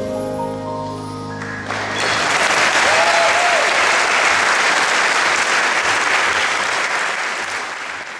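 A gospel choir's final held chord dies away, and about two seconds in an audience breaks into applause that goes on to the end.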